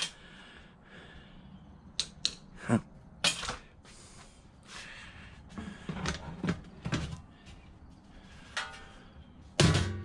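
Scattered clinks, clacks and knocks of hard metal and ceramic parts being handled, pried and dropped while an old microwave oven is taken apart. The sounds come as short separate hits, a few around two to three seconds in and a busier cluster in the middle.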